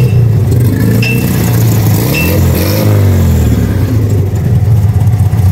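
Freshly rebuilt air-cooled VW flat-four engine with twin carburettors running steadily, revved once near the middle, the revs rising and dropping back.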